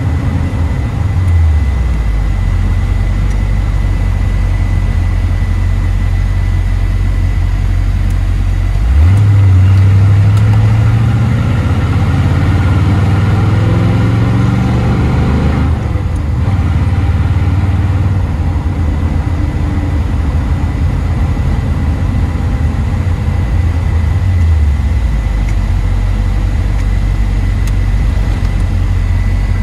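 1969 Chevrolet Corvette C3's V8, heard from inside the cabin while driving. The engine note drops about a second in; about nine seconds in it opens up and climbs steadily in pitch under acceleration for several seconds, then breaks off and falls at an upshift of the four-speed manual. It then cruises steadily and eases off again about three quarters of the way through.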